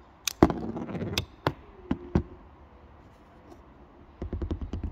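Flat screwdriver prying a CR2032 coin-cell battery out of its holder in a key fob: sharp clicks and a brief rattle at the start, then a few single clicks over the next two seconds. Near the end comes a quick run of small taps from handling the battery and fob.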